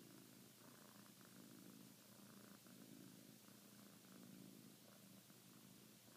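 Sphynx cat purring faintly and steadily, in slow swells about every second and a half, while kneading a fleece blanket.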